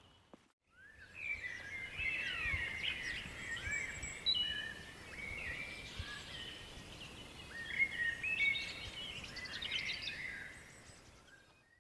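Woodland birdsong: several birds chirping and whistling over one another, starting just under a second in and fading out near the end.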